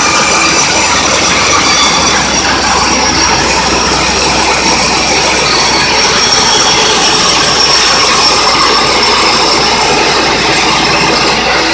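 Portable band sawmill running and cutting lengthwise through an acacia log, with a loud, steady machine noise and a faint high whine.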